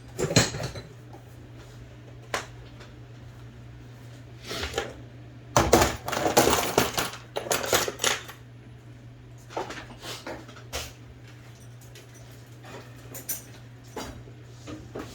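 Small metal tools and typewriter parts clinking and knocking on a workbench: a dozen or so separate taps, with a busier flurry of clatter about six seconds in, over a steady low hum.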